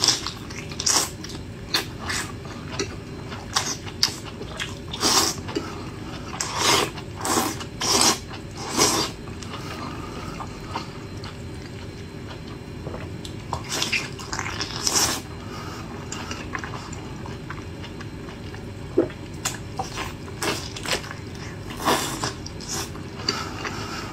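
Close-up eating sounds of a person biting, sucking and chewing soft, sauce-soaked food: wet smacks and slurps in irregular bursts, with two quieter stretches of a few seconds near the middle. A steady low background hum runs beneath.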